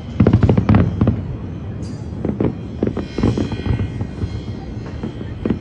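Aerial fireworks display: a rapid cluster of bangs and crackles in the first second, then scattered bangs, with a crackling hiss around three seconds in.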